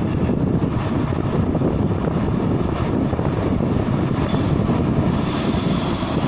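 ChS8 electric locomotive and its train running through a tunnel toward the listener, a steady low noise, with a high-pitched squeal that comes in about four seconds in, breaks off briefly and then holds.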